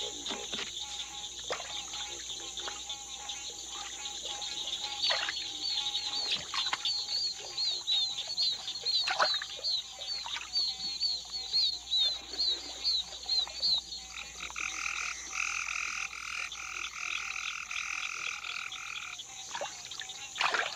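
Night chorus of swamp frogs: a steady high-pitched trill runs throughout. From about five seconds in, a rapid series of short chirping calls comes at roughly two a second. Over the last few seconds a pulsed, buzzy call takes over.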